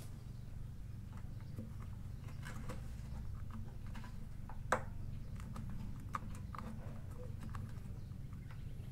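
Faint scattered clicks and small knocks of a hand tool and fingers working at the hose fittings under a motorcycle fuel tank, with one sharper click a little under five seconds in, over a steady low hum.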